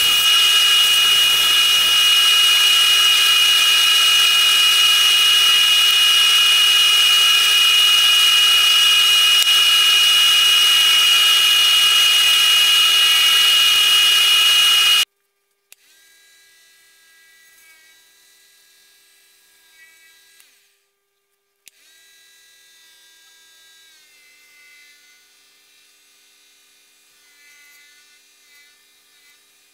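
Wood lathe running with a steady high whine and hiss while a small spalted maple piece is turned. The sound cuts off abruptly about halfway through, leaving only faint wavering tones.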